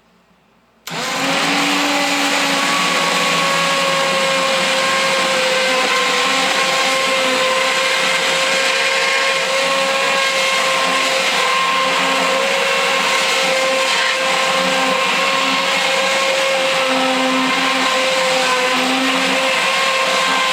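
Handheld immersion blender switched on about a second in and running steadily at high speed, a loud motor whine, as it purées a pot of hot potato soup.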